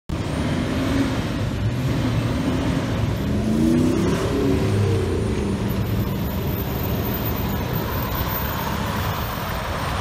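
Diesel dump truck engine pulling hard as the truck accelerates, its pitch rising about four seconds in, with a faint high turbocharger whistle over the engine.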